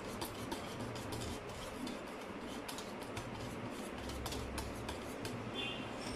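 Metal balloon whisk beating batter in a plastic mixing bowl: a rapid, irregular run of light clicks as the wires strike the bowl, over a soft stirring noise.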